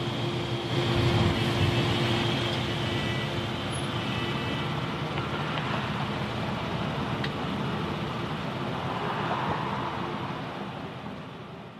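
Steady rushing noise like road traffic, with a faint low hum. It swells about a second in and fades out near the end.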